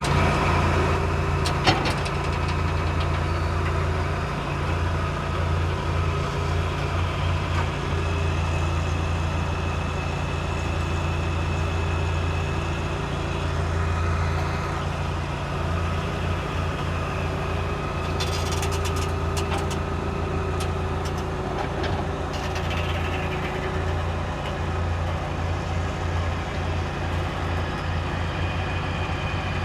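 Heavy vehicle engine running steadily at a low idle-like hum, with a few short clicks.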